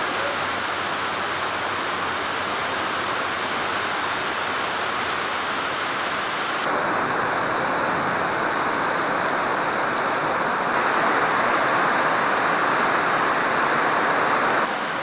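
Heavy rain pouring down on a railway platform and tracks: a steady, dense hiss that steps up in loudness twice, near the middle and again later.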